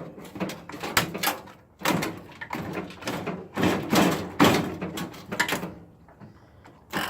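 Metal and plastic appliance parts knocking, clattering and scraping as a monitor or microwave is pulled apart by hand, with a string of irregular knocks and scrapes.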